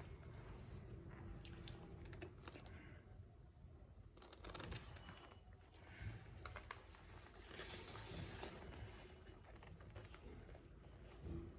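Faint light taps and clicks with soft handling noise, scattered irregularly, like fingers tapping on a device.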